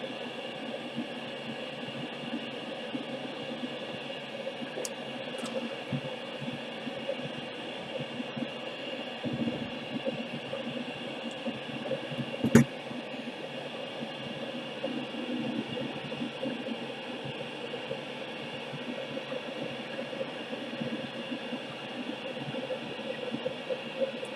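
Gas brazing torch flame burning with a steady hiss as it heats a copper pipe and its fitting for silver brazing. A single sharp metal clank about halfway through.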